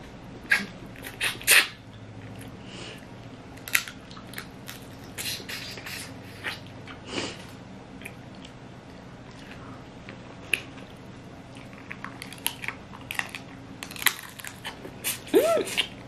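Snow crab legs being cracked and pulled apart by hand and eaten: scattered sharp cracks and snaps of shell, with chewing.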